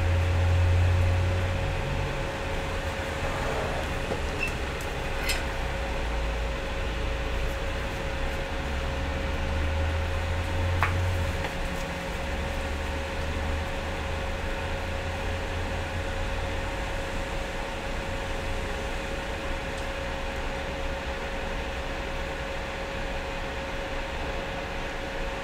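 Steady fan hum with a constant mid-pitched whine and a low rumble that swells and fades, plus a couple of faint clicks.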